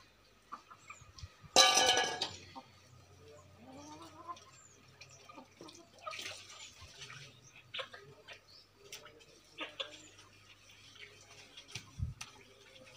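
Water poured from a steel bowl splashing over a wet puppy and onto concrete, one loud splash about a second and a half in, then quieter splashes and wet rubbing. Small birds chirp faintly now and then.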